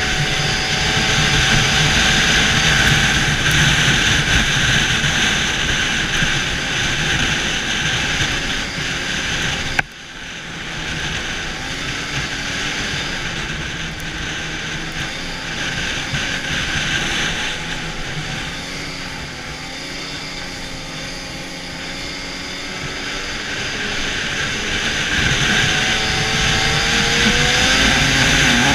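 Arctic Cat snowmobile engine running at trail speed, its pitch rising and falling with the throttle and climbing near the end. About ten seconds in there is a sharp click, after which the sound is briefly quieter.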